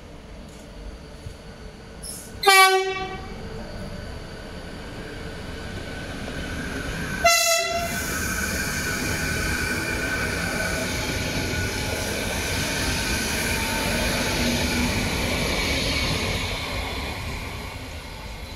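Renfe class 449 electric multiple unit sounding two short horn toots about five seconds apart as it runs through the station, the first the louder. Its passing noise then builds as the cars go by and fades near the end.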